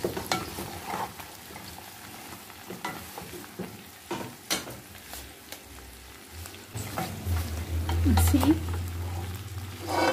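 Wooden spatula stirring battered fried chicken pieces and vegetables in a nonstick pot, with irregular scrapes and knocks against the pan over a light sizzle. A low hum joins in for the last three seconds.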